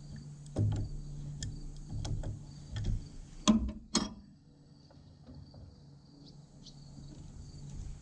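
Knocks, clicks and clatter of hand work on the roller as debris is pulled off it, the two loudest knocks about three and a half and four seconds in. After them it goes quieter, leaving a faint steady high insect drone.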